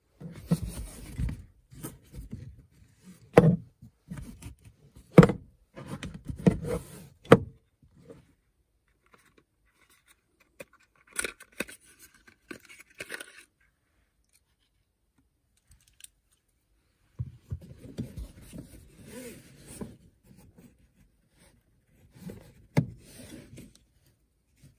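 Close handling noises, with no speech. In the first several seconds come knocks and clatter by the seat belt buckle. Around the middle a small cardboard box is opened and rustled. Then hands fumble a plastic clip against a metal seat belt tongue, with a sharp click near the end.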